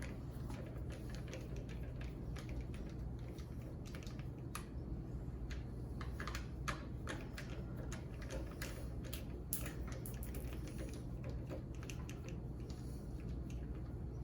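Scattered small metallic clicks and ticks of a door latch assembly being handled and taken apart by hand, over a steady low hum.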